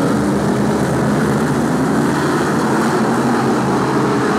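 Several BRISCA F1 stock cars' V8 racing engines running hard in a race. The loud, steady drone wavers in pitch as the cars pass and lap the oval.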